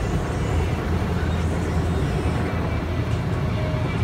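Automatic car wash heard from inside the car's cabin: water spray and wash brushes working over the windshield and body, a steady wash with a low rumble underneath.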